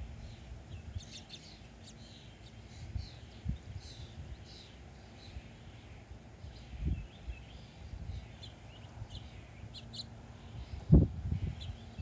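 Small songbirds chirping and twittering in short, scattered calls, with a few low thumps, the loudest about eleven seconds in.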